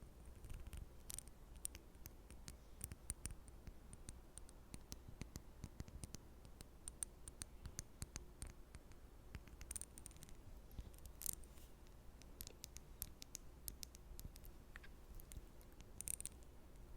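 Quiet close-miked ASMR trigger sounds: irregular soft, crisp clicks and short scratchy strokes, several a second, with a few louder snaps about 1, 10, 11 and 16 seconds in.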